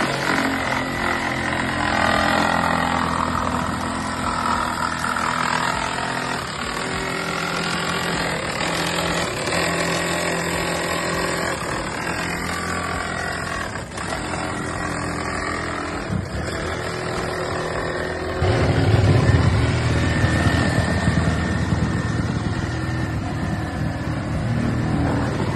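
A motor running steadily, its pitch shifting up and down every second or two, with a heavier, louder low rumble setting in about three-quarters of the way through.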